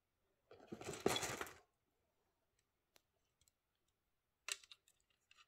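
9mm cartridges being loaded by hand into a nearly full Grand Power Stribog magazine: a scraping, rustling bit of handling about half a second in, then a faint click at about three seconds and a sharper snap at about four and a half seconds as a round is pressed down and snaps into place against the stiff spring.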